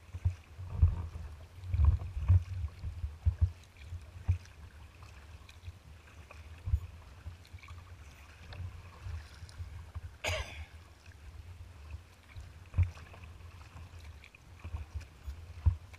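Water lapping and slapping against a kayak's hull as it is paddled through light chop, with irregular low thumps and one sharp splash about ten seconds in.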